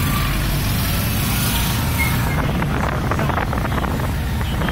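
Boda boda motorcycle taxi engine running steadily under way, amid the noise of street traffic.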